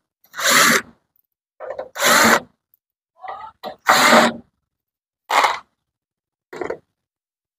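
Cordless drill-driver run in a series of short bursts, each under a second with pauses between, backing out the screws of a power amplifier's top cover.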